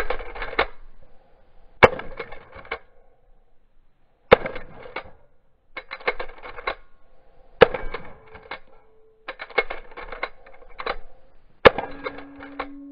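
Pump-action shotgun firing four times a few seconds apart. Each shot is followed by a rapid run of metallic clacks as the pump is racked to chamber the next shell.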